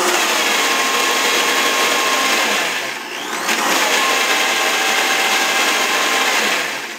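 High-speed blender motor running hard on a thick nut-and-water sauce, just restarted after water was added because the mix was too thick to blend. It dips briefly about three seconds in, rises in pitch as the speed dial is turned back up, then drops away near the end.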